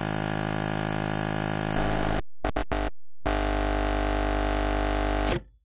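Electronic intro jingle: a held synthesizer chord with many overtones, broken about two seconds in by a few short stabs, then a second held chord that cuts off abruptly near the end.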